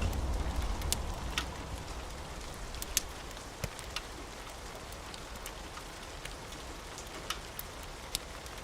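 Steady rain hiss, with the low rumble of thunder dying away over the first second or so. Scattered sharp crackles of a wood fire in a fireplace, about a dozen, sit over the rain.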